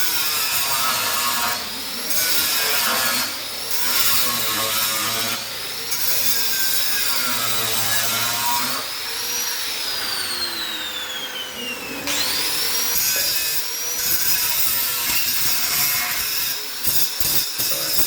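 A power tool, most likely an angle grinder, working the Vespa's sheet-steel floor. Its whine dips and recovers as it is loaded, and about halfway through one long falling whine sounds as it spins down.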